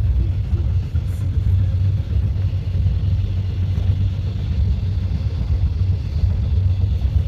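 Train running at speed: a steady, loud low rumble with a noisy hiss above it.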